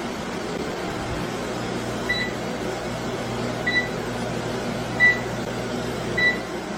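Four short, identical electronic beeps about one and a half seconds apart over a steady whooshing hum.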